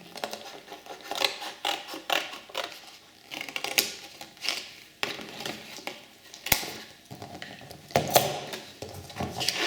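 A cardboard template being cut by hand: a string of irregular snips and crunches, with one sharp click about six and a half seconds in.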